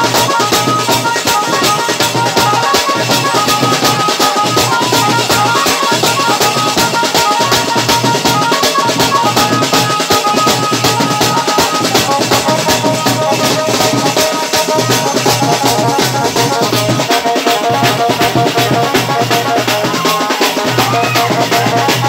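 A band of sling-hung snare drums beaten with sticks in a fast, steady rhythm, with a high held melody line running over the drumming.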